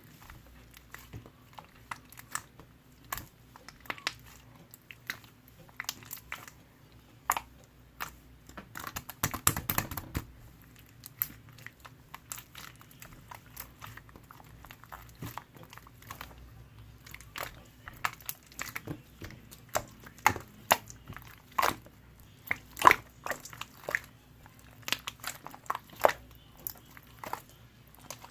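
Slime being squished and pressed by hand, giving irregular sticky clicks and pops, with a denser patch of crackling about nine to ten seconds in.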